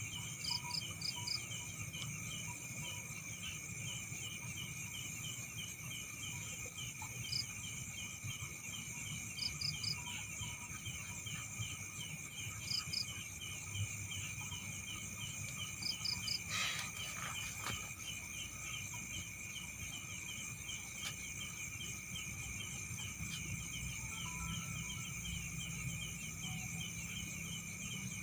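Night insects, crickets among them, trilling steadily, with a regular run of chirps a few times a second and short groups of three or four higher chirps every few seconds. There is a low rumble throughout and a brief noisy burst about two-thirds of the way in.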